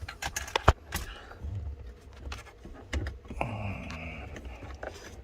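Small ratcheting gear wrench clicking as it loosens a bolt on a blend door actuator, with irregular sharp clicks and a longer rattly, scraping stretch near the end as the tool and plastic parts are handled.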